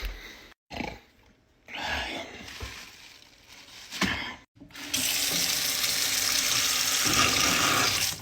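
Tap water running into a sink, a steady rush that starts about five seconds in, after a few short sounds broken by abrupt cuts.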